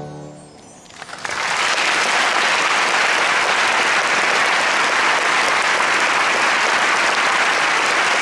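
An orchestra's last held chord dies away, and about a second in a large theatre audience starts applauding, the clapping swelling quickly and then holding steady.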